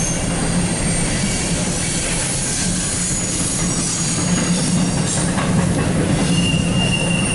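CSX double-stack intermodal freight train rolling past at close range: a steady rumble of wheels on rail, with brief high squeals from the wheels.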